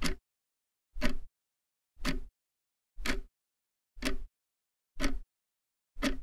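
A clock ticking once a second, seven even ticks with silence between them.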